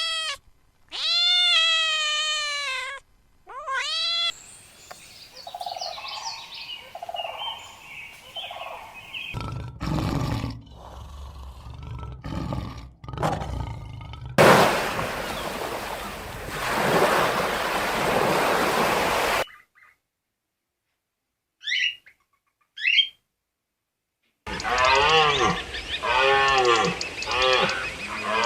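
A run of separate animal calls: long wavering whine-like cries early on, a long rough noisy call in the middle, two short rising chirps after a brief silence, and a cluster of overlapping wavering cries near the end.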